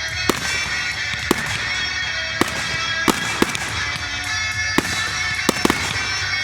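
Fireworks going off: about nine sharp bangs at irregular intervals, with a quick cluster of three near the end, over a steady bed of music.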